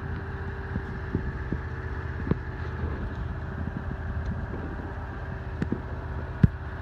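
Wind buffeting the phone's microphone as a low steady rumble, with a faint steady hum underneath, scattered light clicks, and one sharper click near the end.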